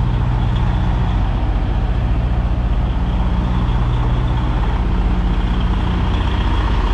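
Semi-truck diesel engine running steadily at low revs as the tractor-trailer reverses slowly.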